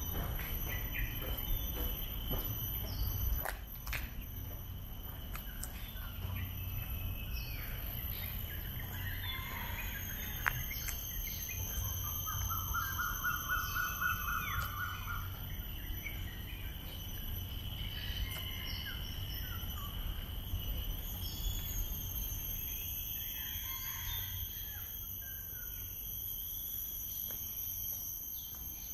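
Tropical park morning ambience: birds calling, with one rapid trill of repeated notes about twelve seconds in, over a steady high-pitched insect drone and a low rumble.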